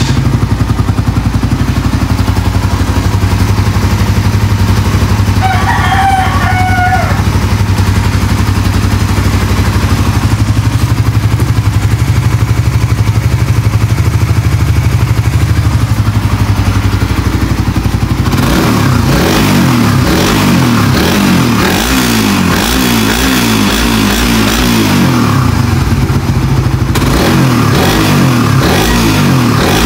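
Suzuki Raider 150 Fi's single-cylinder four-stroke engine idling steadily just after starting, then revved up and down over and over from about 18 seconds in. Its exhaust header, freshly fastened with high-tensile bolts, is no longer leaking. A rooster crows once, briefly, about six seconds in.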